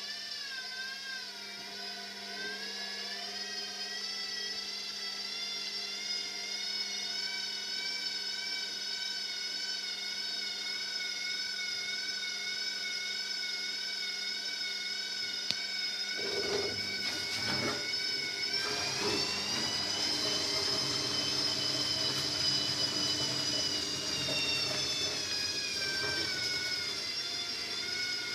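Washing machine on a fast spin, its motor and drum giving a steady whine of several tones. Partway through, a low rumble comes in and the whine climbs to a higher pitch, then eases down slightly near the end.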